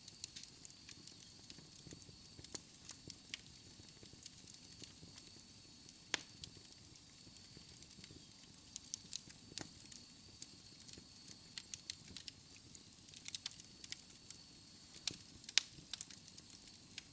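Fire burning in a fireplace: a steady soft hiss with irregular crackles and sharp pops, one louder pop near the end.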